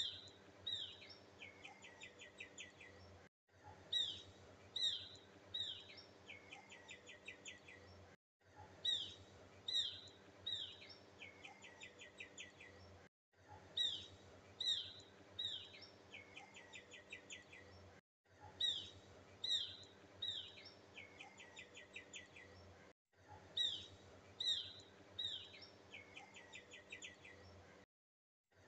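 A short recording of birdsong played on a loop: each pass has three sharp, falling chirps followed by a quick trill of rapid notes, then a brief silent gap before the same pass repeats, about every five seconds.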